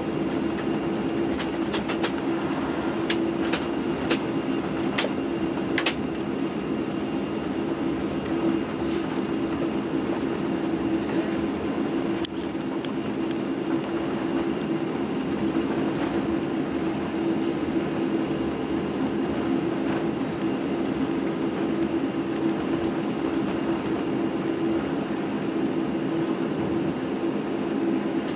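Boeing 747-8i cabin noise while taxiing, heard from a window seat over the wing: the engines at taxi power give a steady, even hum with a low tone, and a few light clicks come in the first six seconds.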